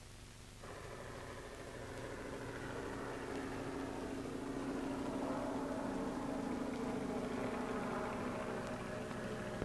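A motor truck's engine running steadily. It cuts in abruptly about half a second in and grows louder, heard over the hiss of an old film soundtrack.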